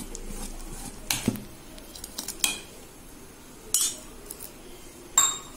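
A metal spoon stirring thick fermented rice batter in a stainless steel vessel, scraping along the bottom and sides, with about five sharp clinks against the steel, two of them ringing briefly.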